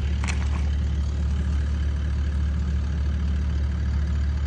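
An engine running steadily at idle, a low, even drone, with one faint click shortly after the start.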